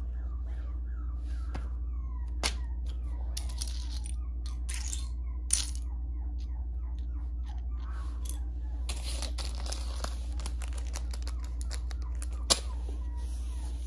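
Loose plastic Lego bricks clicking and clattering against each other and the hard wooden floor as a hand rummages through a pile of them. Single sharp clicks stand out a few times, the loudest near the end, over a steady low hum.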